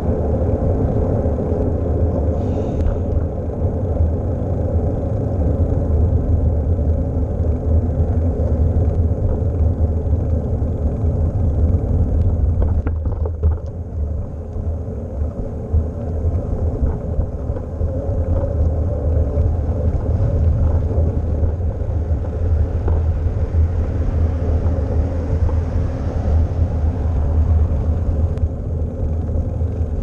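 Wind rumbling on the microphone of a GoPro riding on a moving bicycle, a steady low rumble that eases a little about halfway through.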